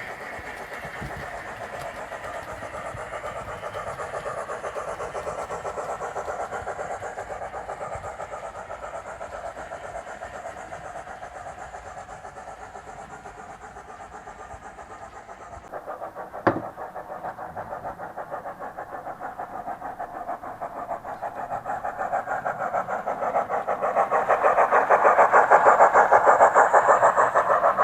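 Sound-fitted Bachmann OO-gauge H2 Atlantic steam locomotive model running, its sound decoder playing rapid, even steam chuffs through the model's speaker. The chuffing grows louder near the end, and a single sharp click comes just past the middle.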